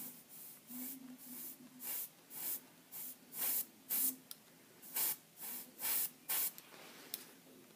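Airbrush spraying paint in a quick series of short hisses, about a dozen bursts at one or two a second, as flame strokes are laid onto a helmet.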